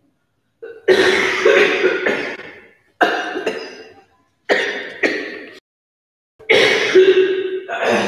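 A woman coughing hard in four loud bouts, each starting sharply and tailing off.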